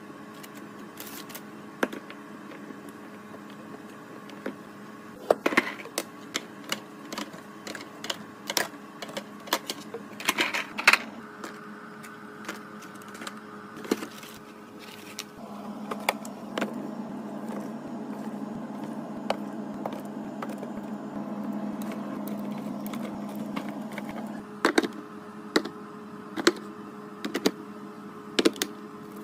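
Containers and food packages handled and set down one after another while a refrigerator is organised: scattered sharp clicks, taps and knocks over a steady low hum. Partway through, a louder steady low whir runs for about nine seconds and then stops.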